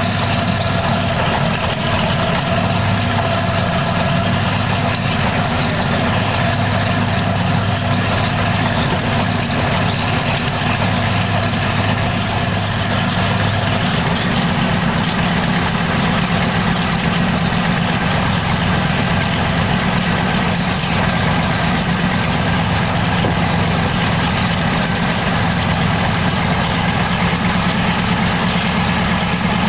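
Pratt & Whitney R-1830 Twin Wasp 14-cylinder radial engine from a B-24 Liberator running steadily on a ground test stand, driving its propeller.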